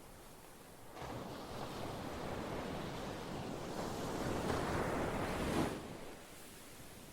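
Ocean wave breaking and washing up: the surf noise rises suddenly about a second in, swells for a few seconds, then falls away quickly near the end.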